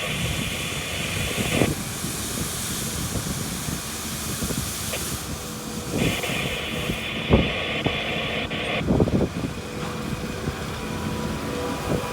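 Wheat-harvest machinery running steadily with a low rumble. A hiss comes in twice, and a few knocks sound over the rumble.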